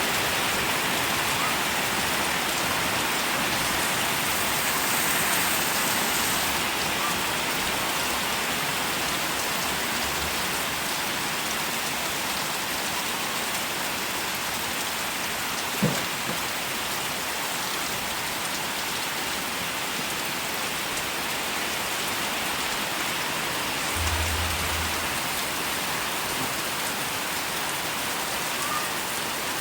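Steady rain falling, an even hiss throughout, with a single short knock about halfway through.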